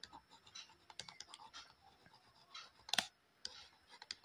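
Faint, scattered taps and light scratches of a stylus writing on a tablet, with one sharper click about three seconds in.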